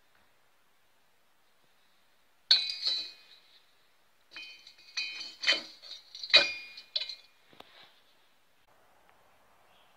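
Metal parts clinking together: a lathe-turned metal piece knocked against a two-stroke trimmer engine's aluminium cylinder. One sharp clink about two and a half seconds in, then a cluster of clinks that ring briefly, from about four to eight seconds in.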